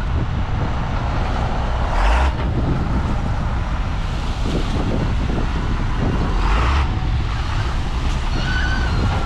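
Heavy work machine's engine running steadily with a deep rumble, with two short bursts of noise about two and six and a half seconds in and a brief high squeal near the end.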